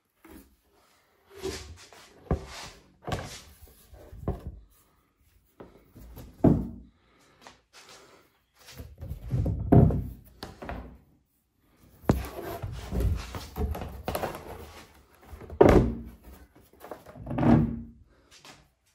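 Flat-pack furniture boards being handled and shifted about, with a string of irregular knocks, thuds and scrapes as the panels bump and slide against each other and the floor. A few heavier thuds stand out, about six, ten, fifteen and seventeen seconds in.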